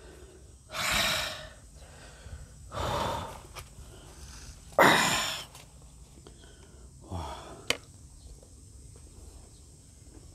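A man breathing out hard in short, breathy puffs, three loud ones about two seconds apart, then a softer one and a sharp click.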